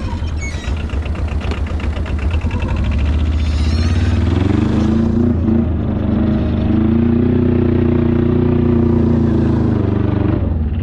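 Arctic Cat diesel ATV's two-cylinder diesel engine running at low revs, then accelerating about four seconds in and holding a steady high-rev drone at its top speed, easing off just before the end.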